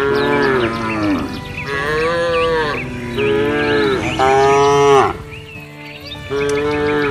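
Cow mooing, five long calls in quick succession, each about a second long.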